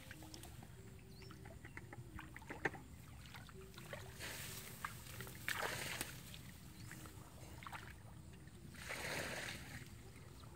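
Water sloshing and splashing, with small knocks and clicks. A sharp click comes about two and a half seconds in, and the biggest surges of splashing come in the middle and again near the end.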